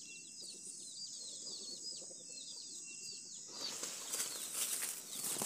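Small birds chirping, many short downward-sliding chirps in quick succession, over a steady high-pitched background tone. About three and a half seconds in, the rustling of leaves takes over as a hand parts the foliage of a malagueta chili pepper plant.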